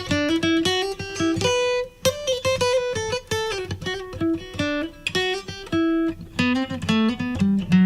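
Acoustic guitar played with picked single notes and chords over bass notes, a quick run of plucked tones, recorded through a microphone into a hardware compressor whose sidechain is high-passed, blended with the uncompressed signal.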